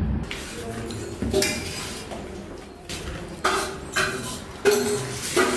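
Steel dishes and serving vessels clinking and clattering during a meal: several sharp knocks, each with a brief metallic ring.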